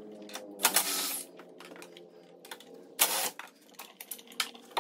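Clicks and light metal clatter of a C5 Corvette front brake caliper being worked off its rotor with the pads still in it, with two louder, longer rattles about a second in and about three seconds in, over a faint steady hum.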